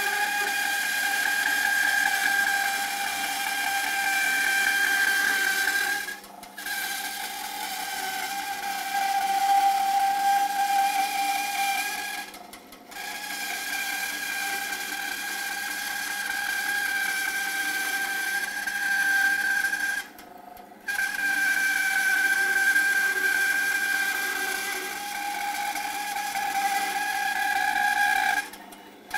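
Record Power BS300E 12-inch bandsaw, 1 hp motor, with a 3/8-inch 6 TPI blade cutting through a 3-inch-thick block of oak: a steady, high whine of the running saw and blade in the wood. The sound dips away briefly four times.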